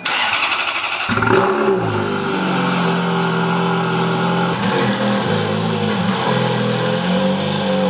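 Ferrari F430's V8 being started: the starter whirs, the engine catches about a second in with a brief rev flare, then settles into a steady idle through its stock exhaust.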